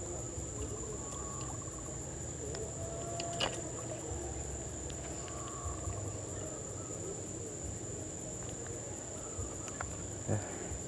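Steady, high-pitched insect chorus that does not let up, with a low rumble underneath and a few faint clicks, the sharpest about three and a half seconds in.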